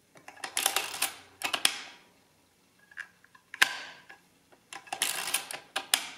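Multical mechanical calculator clicking and clattering as its carriage is shifted and its crank turned: several short bursts of ratchety clicks, with one sharp ringing click about three and a half seconds in.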